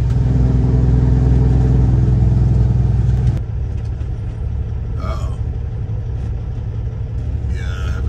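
Semi truck's diesel engine and road noise inside the cab while driving. For the first three seconds the engine's drone is loudest, then it drops suddenly to a lower, steadier rumble.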